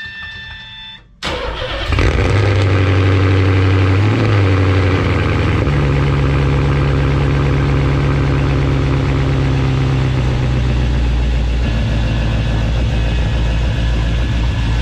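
A car engine cranks and starts about a second in, then runs loud and steady at idle, its pitch stepping around a few seconds in, as the car is driven out of the garage.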